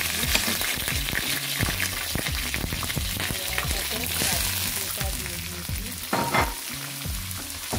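Whole spices (bay leaves, cinnamon and cardamom) sizzling and crackling in hot oil in a pan, with sliced onion tipped in about halfway through as the sizzle carries on. A brief louder clatter comes a little over six seconds in.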